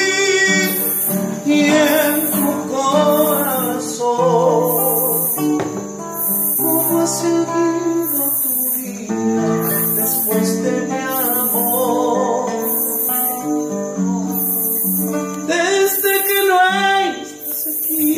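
Classical nylon-string guitar strummed and picked in a slow ballad accompaniment, with a man's voice singing along at times.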